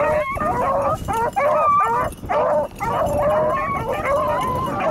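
A pack of beagles baying as they run a rabbit's scent trail, several voices overlapping in a near-continuous chorus with a few brief breaks. The baying is the hounds giving tongue on the scent, the sign that they are on the rabbit's track.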